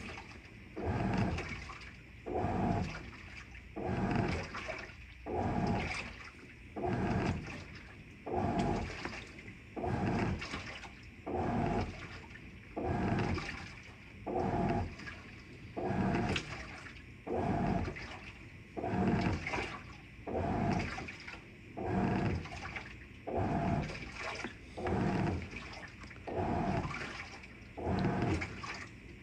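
Avanti top-load washing machine agitating a load in water: the wash action swishes back and forth and the water sloshes in a regular surge about once a second.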